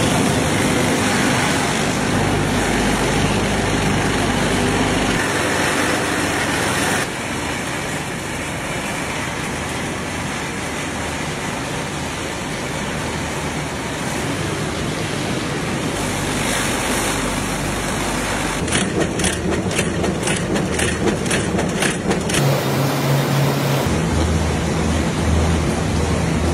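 Matchstick factory machinery running: a steady mechanical din from the vibrating sieve tray and cleated conveyor carrying wooden match splints. A stretch of rapid rattling clicks comes about two-thirds of the way through, and a low hum near the end.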